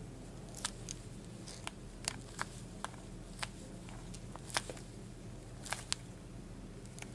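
A dozen or so sharp, irregularly spaced plastic clicks and creaks as a filled cap is screwed by gloved hands onto the plastic ram of a buried telephone-cable splice enclosure, over a steady low hum.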